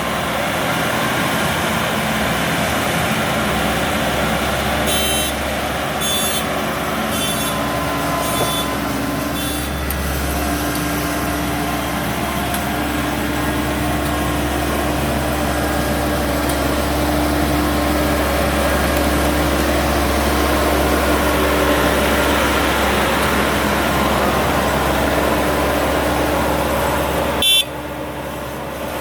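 Diesel engine of a WD102PRO rice combine harvester running steadily. About five seconds in comes a series of five short high-pitched beeps, roughly a second apart, and near the end there is a brief loud burst.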